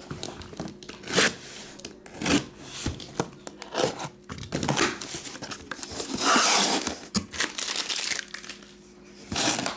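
Packaging on a sealed cardboard case of trading-card boxes being torn open and crumpled: several short, sharp rips, with a longer tearing sound about six seconds in.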